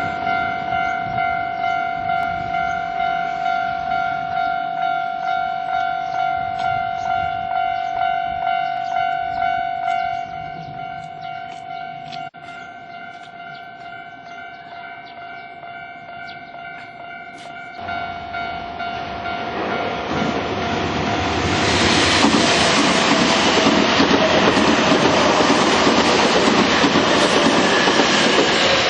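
Japanese level-crossing warning bell ringing in a steady electronic ding, a little under two strikes a second, dropping to a lower volume about ten seconds in. From about eighteen seconds in, an electric train approaches and runs over the crossing, its rail and wheel noise growing until it is the loudest sound while the bell goes on underneath.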